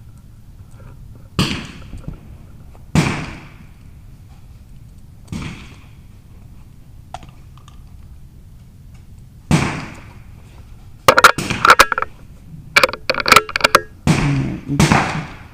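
Rimfire .22LR rifle shots on the firing line: single sharp cracks a few seconds apart, each with a short fading tail. About 11 seconds in comes a quick run of overlapping cracks, then two more shots near the end.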